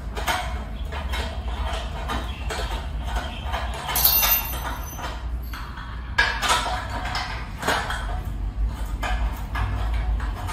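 Metal clinks and taps from assembling a white steel desk frame: parts and tools knocking against the frame's steel tubes, with a louder clank about four seconds in and another about six seconds in.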